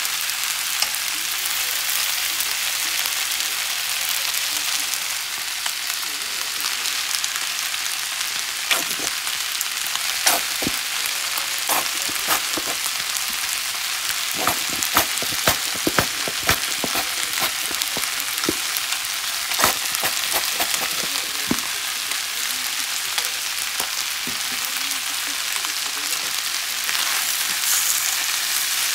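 Yakisoba noodles, cabbage and pork sizzling steadily in a hot frying pan as they are stir-fried, with sharp clicks of chopsticks and spatula knocking on the pan, most frequent through the middle.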